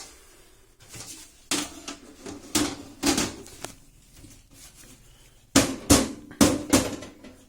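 Side panel of a desktop computer case being fitted back on: a series of knocks and clatters, ending in four sharp hits in quick succession as it is pushed into place.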